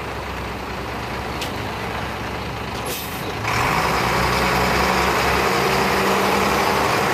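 Work trucks and a crew bus driving past on a dirt road. About three seconds in there is a short hiss of air, then the bus's engine and tyres come in close and louder and stay that way.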